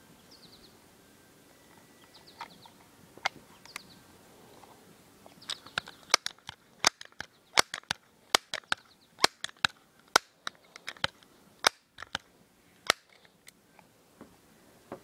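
Faint bird chirps, then a fast, irregular run of about twenty sharp clicks close by from the Crosman 1377 multi-pump air pistol being handled between shots, starting about halfway through and stopping near the end.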